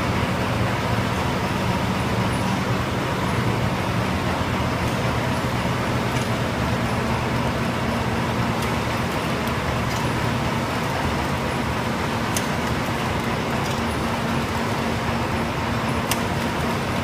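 Fully automatic baby wet wipe production line running: a steady machine hum with a thin high whine, and a few faint clicks from the moving mechanism in the second half.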